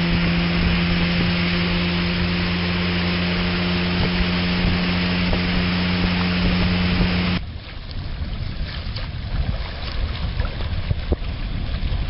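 Steady drone of an outboard motor running at speed over a loud rush of water along the MacGregor 26M's hull. About seven seconds in this stops abruptly, giving way to quieter, uneven wind and water noise.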